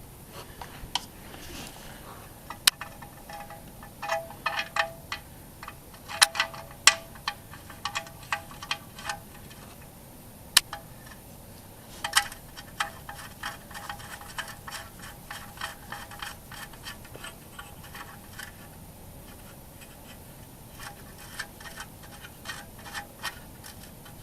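Faint clusters of light metallic clicks and scrapes, some with a brief ringing tone, as a garden tractor's oil drain plug is handled and threaded back in by hand.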